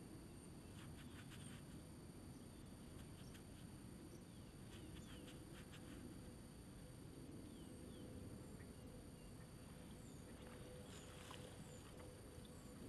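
Faint crackling of dug soil being crumbled and rubbed between gloved hands, in short clusters, over a low steady rumble, with a few short high chirps.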